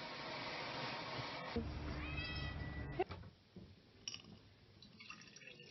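A steady hiss, then a low thump, then a cat meows once about two seconds in. After a click the sound drops away, leaving only a few faint high mews.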